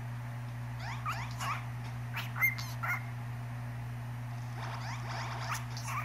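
Cockatiel chirping: a few short chirps about a second in, a brief whistled note midway, then a quick run of chirps near the end, over a steady low hum.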